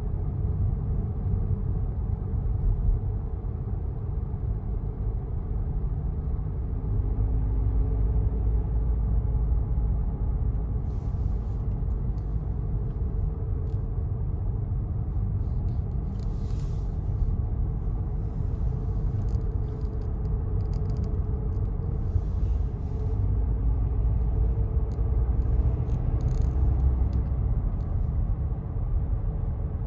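Kia Sorento 2.2 four-cylinder diesel running with a steady low rumble.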